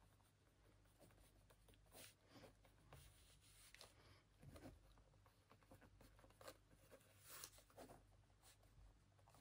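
Pen scratching on notebook paper in faint, irregular strokes of handwriting.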